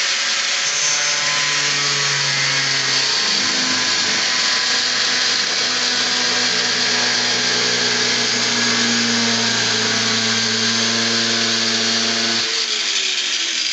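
Black+Decker angle grinder running at full speed, its cutting disc slicing through a plexiglass (acrylic) sheet: a steady high whine over a loud hiss from the cut. Near the end the pitch starts to fall as the motor slows.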